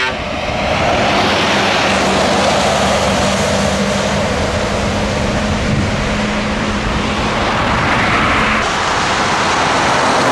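Scania V8 diesel truck engine running on the road: a steady drone over a wash of wind and road noise. The engine note changes about eight and a half seconds in.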